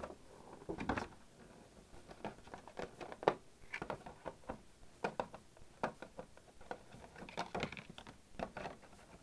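Hands handling clear plastic packaging: irregular crinkles, taps and clicks.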